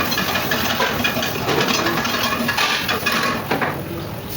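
Food sizzling and crackling in a hot pan, with light clinks and scrapes of a metal utensil against it.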